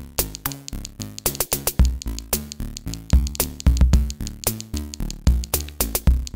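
8-bit chiptune background music: blocky synth tones stepping through a melody over a fast drum-machine beat.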